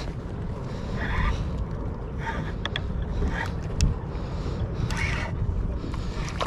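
Wind rumbling on the microphone over water lapping against a kayak hull, with a few light clicks and one low knock in the middle.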